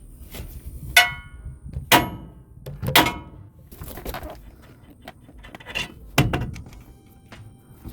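Hammer blows on a steel steering knuckle to break the outer tie rod end's tapered stud loose: three sharp, ringing metallic strikes about a second apart, then a duller knock about six seconds in.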